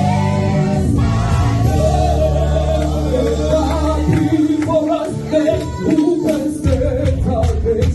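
Gospel worship team singing in parts with band accompaniment. Sustained low bass notes run under the voices for the first half; percussion hits come in about halfway.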